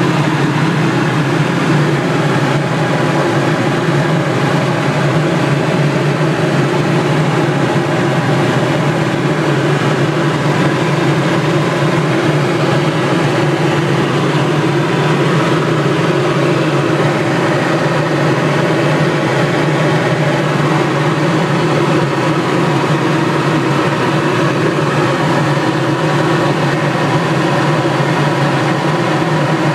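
Helicopter in flight heard from inside the cabin: the steady, loud drone of the engine and rotors.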